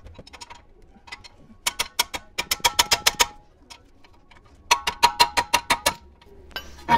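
Ratchet wrench clicking in two quick runs, about nine clicks a second, as the 22 mm brake caliper carrier bolts are tightened.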